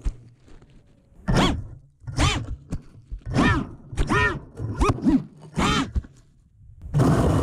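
A 5-inch FPV racing quad's brushless motors revving up and dropping back in about six short blips, props whacking dry grass: the crashed quad, lying upside down in the grass, is being flipped back upright.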